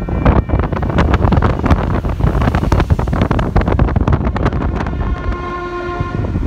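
Wind buffeting a handheld camera's microphone in rough, irregular gusts, with a brief steady tone about five seconds in.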